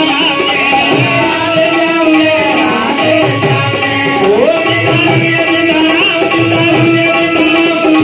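Amplified Indian devotional dhun music: a man's voice singing through a microphone over a wooden stringed instrument, with recurring hand-drum beats.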